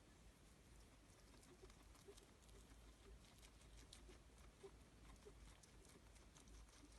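Guinea pig wheezing faintly: short, soft pitched notes with its breaths, repeating irregularly about once or twice a second, with faint light ticks over them.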